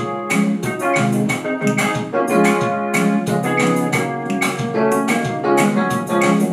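Yamaha electronic keyboard playing sustained chords that are re-struck in a quick, steady rhythm, with no singing over them.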